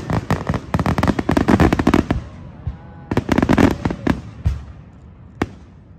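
Aerial fireworks shells bursting in rapid volleys of bangs and crackles: a dense run for about two seconds, a second cluster about three seconds in, and a single sharp crack near the end.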